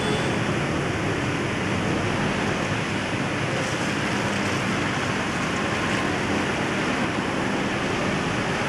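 Steady rushing of running water, an even wash of noise with no breaks.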